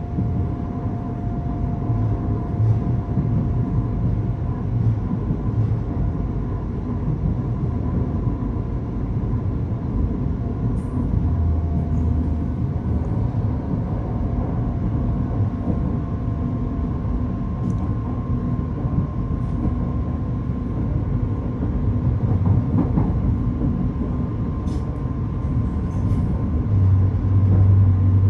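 Brisbane electric suburban train running: a steady rumble with a faint steady whine over it, and a few light ticks.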